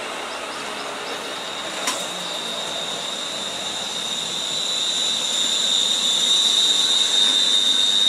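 ScotRail class 380 Siemens Desiro electric multiple unit moving past on the track, its rolling noise carrying a steady high-pitched whine that grows louder toward the end. A single sharp click about two seconds in.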